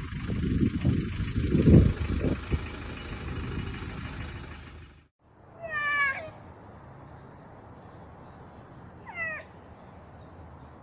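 A low rumbling noise, loudest about two seconds in, cuts off abruptly about five seconds in. Then a pet animal gives two short, high, meow-like cries about three seconds apart, the first the louder.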